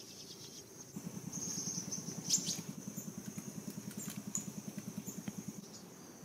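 Insects chirring in a steady high tone. A low, rapid throbbing of about ten pulses a second starts about a second in and stops near the end, and there is a short rustle about two seconds in.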